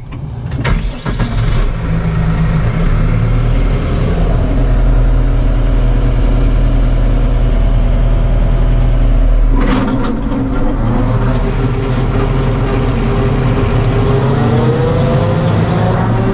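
Case IH 75C tractor's diesel engine running steadily, heard from inside the cab. About ten seconds in there is a clunk, then a whine that slowly rises in pitch as the engine and PTO driveline come up to speed.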